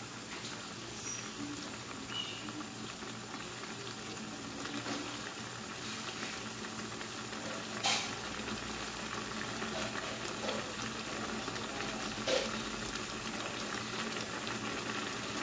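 Seafood noodle broth with glass noodles, shrimp and carrots boiling hard in a pan, a steady bubbling and crackling that grows slightly louder. Two short sharp clicks stand out, about eight and twelve seconds in.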